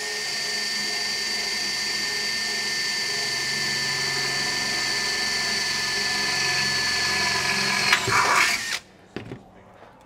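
Makita 18V cordless drill with a quarter-inch bit drilling into a furnace heat exchanger tube, the motor running steadily with a high whine under load. About eight seconds in the sound turns uneven and rattly for under a second, then the drill stops.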